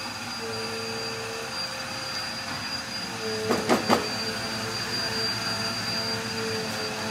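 Chicken cooking in a nonstick frying pan over a gas flame, under a steady rushing hum with a whine that comes and goes. About halfway through, a spatula scrapes and taps against the pan three times in quick succession.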